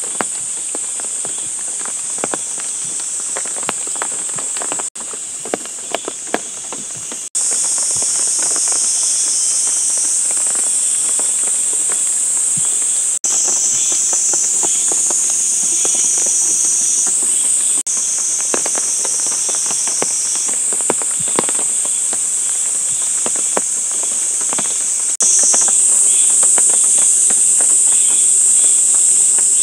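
Chorus of crickets or other insects: a steady, high-pitched trill, with scattered faint clicks and taps beneath it. The chorus breaks off and comes back at a changed level several times.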